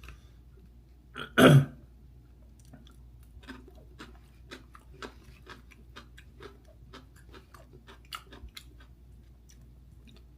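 A person chewing dumplings close to the microphone, with small wet mouth clicks a few times a second. One much louder short sound comes about a second and a half in.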